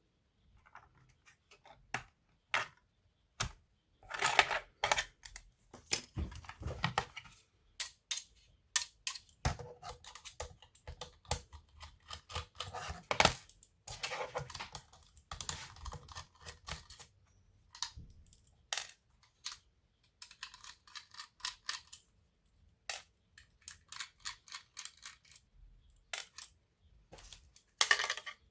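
Irregular clicks, taps and scraping of small plastic and metal parts being handled on an Asus A42F notebook, with a run of quick, light clicks a little past the middle.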